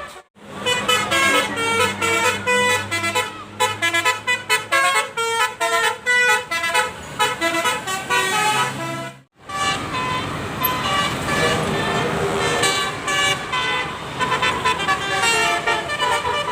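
Bus 'telolet basuri' musical horns playing quick tunes of stepped horn notes. The horns break off briefly about nine seconds in, where one clip cuts to another.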